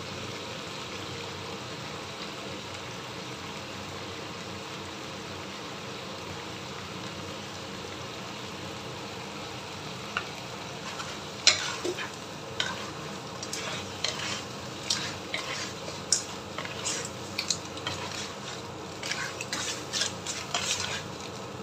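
Razor clams sizzling steadily in hot oil in a non-stick wok with tom yam paste. From about halfway through, a wooden spatula stirs them, adding irregular clacks and scrapes of shell and spatula against the pan.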